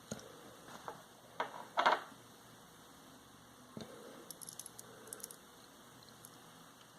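Light handling noises from hands working on a small vape atomizer during a rebuild: a few short clicks and rustles of small parts, the loudest about two seconds in, then a run of faint ticks around the middle.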